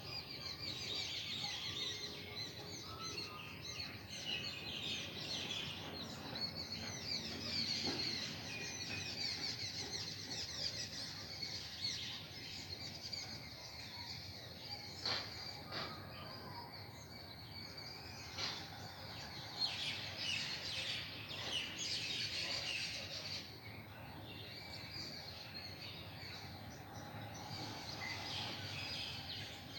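Many small birds chirping and twittering continuously over a steady outdoor hum, with a couple of sharp clicks about halfway through.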